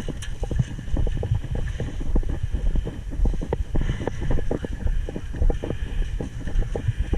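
Wind buffeting the microphone in an uneven low rumble, with many short, irregular knocks and rustles of handling or movement on top.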